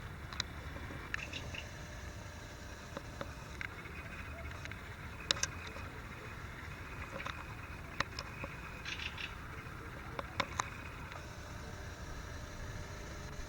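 Birds singing and calling: short sharp chirps scattered throughout, with a long high buzzy trill about a second in and another near the end, over a low steady rumble.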